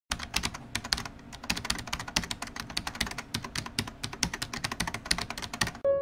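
Fast, uneven clicking of keys being typed on a computer keyboard, stopping just before the end, when a piano note comes in.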